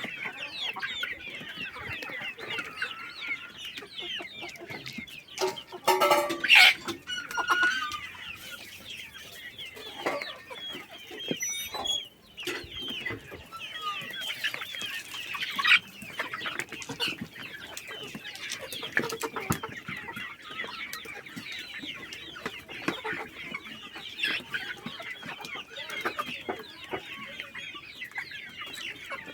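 A flock of Kadaknath chickens clucking and calling in a dense, continuous chatter, with a few louder calls, the loudest about six seconds in.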